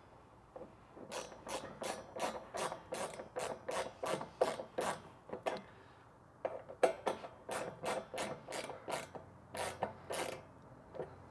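Hand ratchet tightening a bolt, its pawl clicking on each back-swing in a quick even rhythm of about three to four strokes a second. There are two runs with a short pause about six seconds in.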